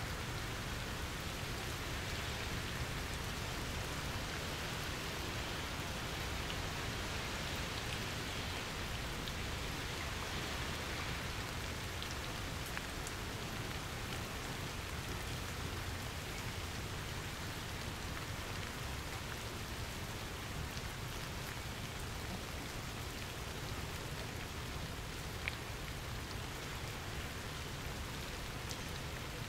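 Steady rain falling, with a few sharper drop ticks standing out, one about two-thirds of the way through and one near the end.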